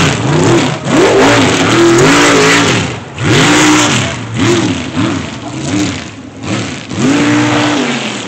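Mega truck engine revving hard over and over, pitch rising and falling about once a second, as the truck spins and throws dirt. The engine note eases off near the end.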